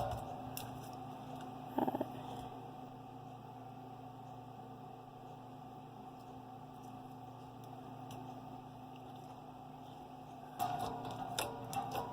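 Slime being worked by hand for ASMR: a brief squish about two seconds in, then a long stretch of only a faint steady hum, and clicky crackling squishes starting again near the end.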